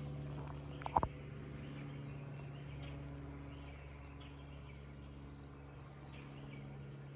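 Distant aircraft engine drone, a steady low hum that slowly fades, with faint bird chirps and a brief sharp sound about a second in.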